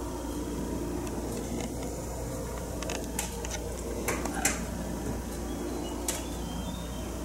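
Steady low indoor room hum, with a handful of sharp clicks and taps from the camera being handled as the view is pulled back, clustered about three to four and a half seconds in and one more about six seconds in.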